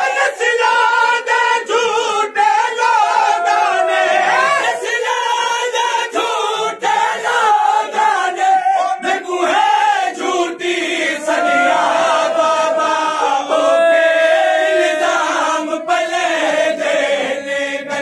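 Men's voices chanting a Shia noha (lament) together, the melody unbroken throughout, with regular slaps of matam, hands beating on chests in time with it.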